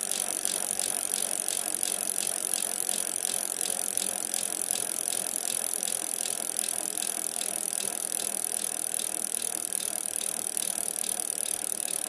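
Bicycle freewheel ratchet clicking in a fast, even tick over a steady hiss.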